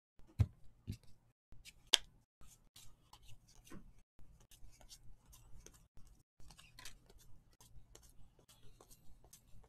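Trading cards being handled and flipped through one by one: soft rustles and light clicks at irregular intervals, with a sharper click about two seconds in.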